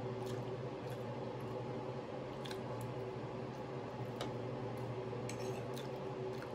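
A metal fork clicking and scraping now and then against a glass serving dish while food is eaten, with soft chewing, over a steady low hum.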